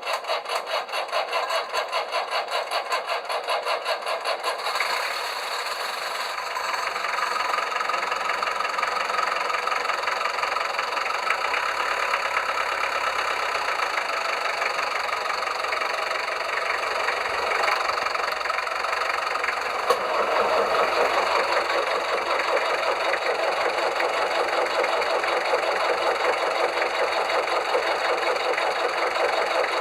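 Princess 32 motor boat's inboard engine on a cold start: the starter cranks in an even rhythmic pulse for about four to five seconds, then the engine catches and settles into a steady idle. About two-thirds of the way through the sound becomes louder and fuller as the second of the twin engines starts and idles alongside.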